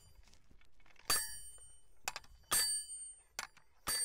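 Steel drop hammer of a dual-mass dynamic cone penetrometer striking the anvil three times, about one and a half seconds apart, driving the cone into the soil; each blow is a sharp metallic clang with a bell-like ring.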